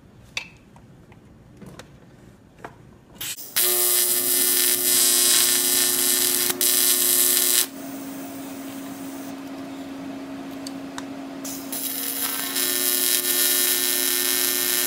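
An AC TIG welding arc on aluminum, running at about 150 to 180 amps, starts about three and a half seconds in with a sudden loud, steady electric buzz and hiss. It drops to a quieter buzz for about four seconds in the middle, then comes back up to full loudness.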